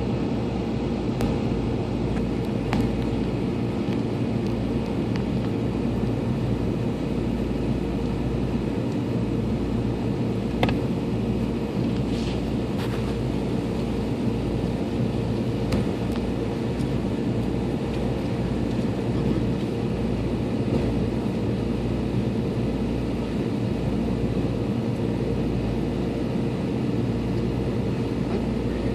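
Winter storm wind blowing steadily, buffeting the microphone with a gusty low rumble, over a steady hum. A sharp click about eleven seconds in.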